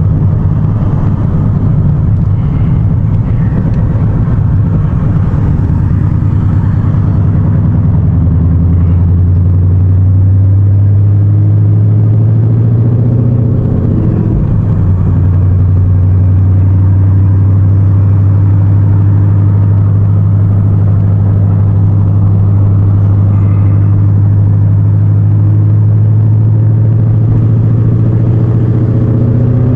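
Ford Mustang GT's 5.0 V8 running through a loud dump exhaust, heard from inside the cabin as a steady deep drone. The engine note rises slightly and then bends briefly about halfway through, as during a gear change, before settling back into a steady drone.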